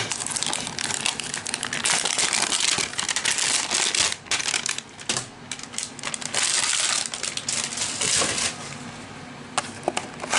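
Packaging being torn and unwrapped by hand as a trading-card hanger box is opened: a dense crackle of plastic wrap and cardboard with many small clicks. It eases off briefly about four and five seconds in and turns lighter near the end.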